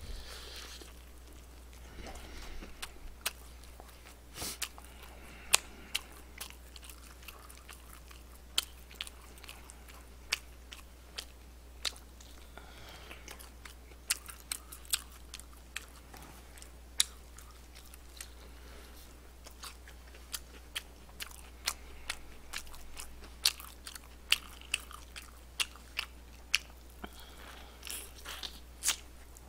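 Close-miked eating of crispy fried chicken: many sharp, irregular crunches of the batter between bites and chewing. A faint steady low hum runs underneath.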